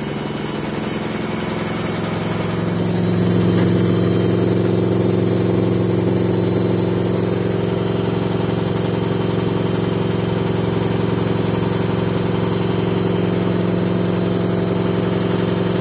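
Samsung WF60F4E0W0W front-loading washing machine on its final spin: the drum motor speeds up over the first few seconds, then holds a steady high-speed hum just short of 1,400 rpm, the machine shaking very badly.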